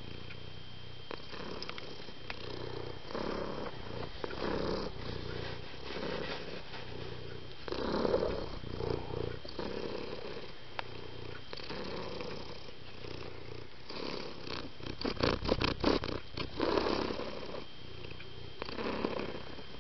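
Domestic cat purring close by, swelling and fading in cycles about a second apart. About fifteen seconds in comes a quick run of sharp clicks or knocks, louder than the purr.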